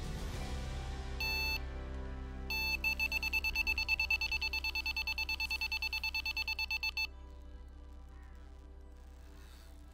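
Electronic carp bite alarm sounding a run: one beep, then about a second later a fast continuous stream of beeps, about nine a second for some four seconds, as a carp takes the bait and pulls line from the rod. Music plays underneath and fades out as the beeping stops.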